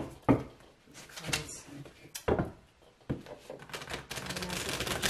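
A deck of tarot cards being handled and shuffled: a few sharp card clacks as the deck is squared and split, then a fast run of card flicks from about three seconds in.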